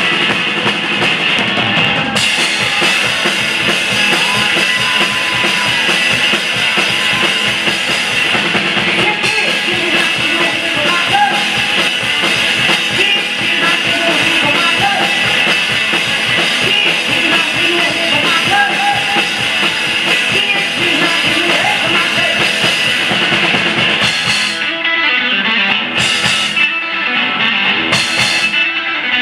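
Loud live rock music: electric guitar and a drum kit playing together. Near the end the playing breaks up into separate accented hits with short gaps between them.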